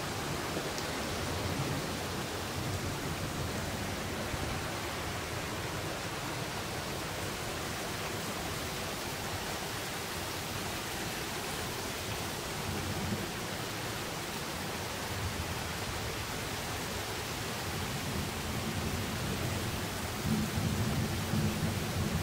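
Steady hiss of rain with distant thunder rumbling low underneath, the rumble swelling near the end.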